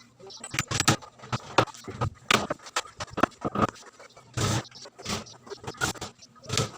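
A series of irregular knocks and clatters, hard objects being handled or struck, with a longer clatter about four and a half seconds in.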